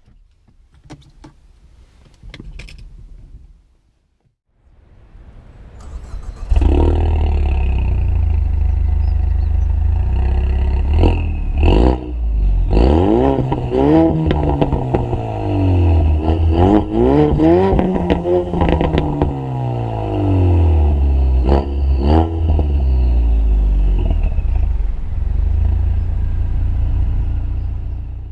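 2015 Ford Mustang's 2.3 L EcoBoost turbocharged four-cylinder engine started about six seconds in, then idling. It is revved up and let fall back several times in a row in the middle before settling back to a steady idle.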